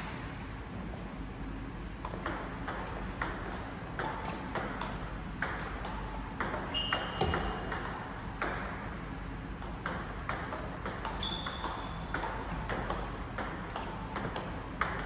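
Table tennis rally of push strokes: the celluloid-type ball clicking off the rubber paddles and bouncing on the table, a sharp tick about every half second. Two brief high squeaks sound about seven and eleven seconds in.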